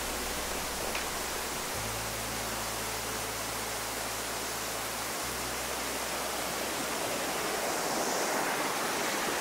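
Steady rushing of a burn running down through cascades and small waterfalls: an even hiss of water that grows slightly louder near the end.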